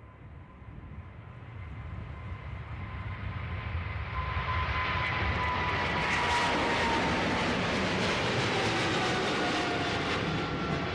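Jet airliner passing close, its engine noise building over several seconds to a loud, steady level, with a whine that slides slowly down in pitch as it goes by.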